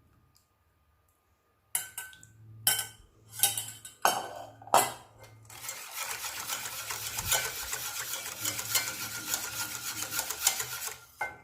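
A few knocks and clatters of kitchen utensils against a pot, then about five seconds of steady stirring in a saucepan, a utensil scraping and ticking rapidly against the pan as milk is mixed with sugar and pastry-cream powder.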